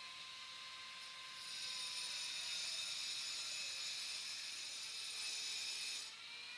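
A steady hiss that starts about a second and a half in and cuts off sharply about half a second before the end, over a faint steady hum.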